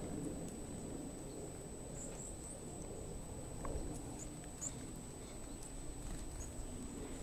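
Japanese pygmy woodpecker pecking at suet through a wire-mesh feeder: faint, irregular small taps and scratches over low outdoor rumble.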